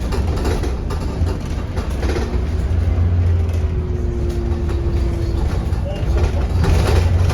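Bus engine running with a steady low hum that grows a little louder near the end.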